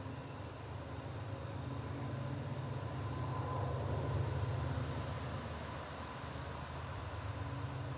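Freight train rolling along the track with a steady low rumble that swells to its loudest about halfway through.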